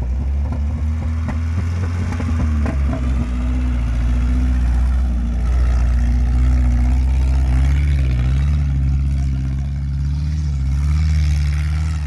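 Lada Niva's engine running under load on sand. Its pitch rises and falls with the throttle as it comes down a slope and passes close by. A few short knocks sound in the first few seconds.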